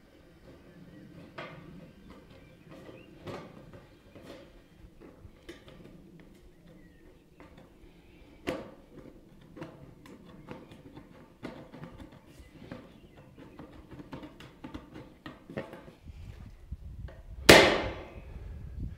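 Ridge flashing being cut and bent by hand: irregular small clicks and cutting snaps, with one loud sharp knock near the end.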